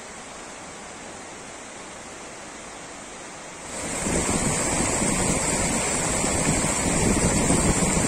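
A faint steady hiss, then about four seconds in the loud, steady rush of a mountain stream cascading over rock ledges swells in sharply.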